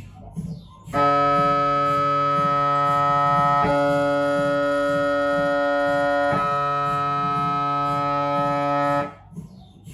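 Siemens Magnetom Avanto 1.5 T MRI scanner sounding a loud, steady buzzing tone during a scan sequence, starting about a second in and cutting off about a second before the end. The tone changes twice, with a click at each change, and fainter rhythmic pulsing is heard before and after it.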